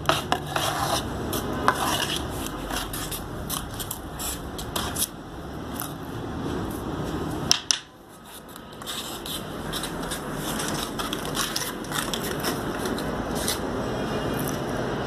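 A steel mason's trowel scraping and spreading cement mortar over a stone stair slab. A few sharp taps of the trowel come in the first two seconds, and one sharp knock comes about halfway through.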